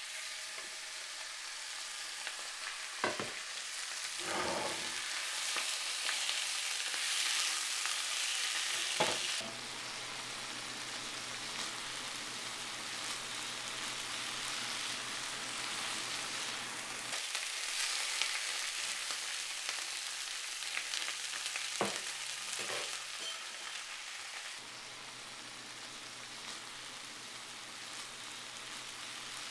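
Ground meat sizzling in a cast-iron skillet, with a few short knocks and scrapes of a wooden spatula against the pan. The sizzle shifts suddenly in level a few times.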